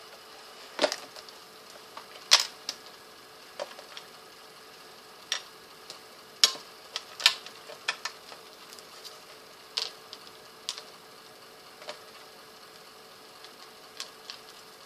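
Eyeshadow palette case being handled and opened: a string of sharp clicks and taps at irregular intervals, a few of them louder knocks.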